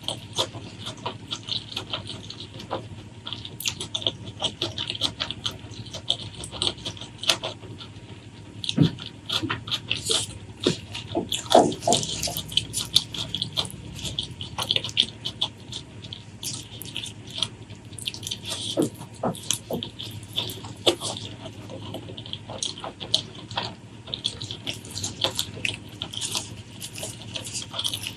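Close-miked mukbang eating sounds: wet chewing and lip smacking, a fast, irregular stream of small sticky clicks and squelches, with a few louder smacks about 9 and 12 seconds in.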